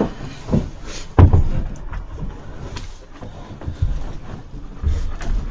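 A heavy battery, about 100 pounds, being handled and shifted into its compartment: irregular knocks and thumps with handling noise, the loudest thump about a second in.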